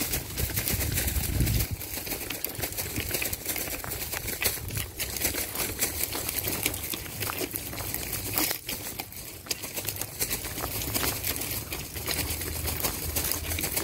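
Footsteps crunching on railway ballast gravel as someone walks along the track, in a steady run of crisp steps. A low rumble sounds for the first couple of seconds.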